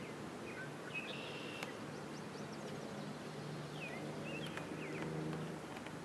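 Outdoor ambience: a steady hiss under a low hum, with a few short high bird chirps about a second in and again around four seconds.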